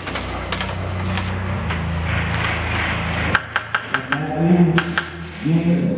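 Airsoft guns firing in an indoor arena: scattered sharp cracks, then a quick run of them about three and a half seconds in, over a steady low hum. A man's voice comes in near the end.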